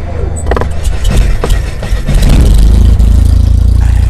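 Cinematic intro sound effects: a few sharp hits in the first second and a half, then a loud, deep, steady rumble.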